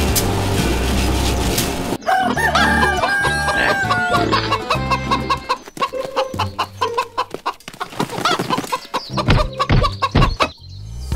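A rooster crowing and hens clucking in a quick repeated run, over background music. The first two seconds hold clattering machine noise with music, which cuts off abruptly.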